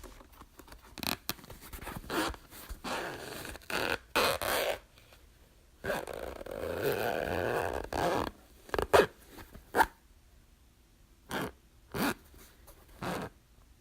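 Zippers being zipped and unzipped in a series of separate pulls. Short quick zips come first, then one slow pull lasting about two seconds in the middle, then several short sharp zips spaced apart.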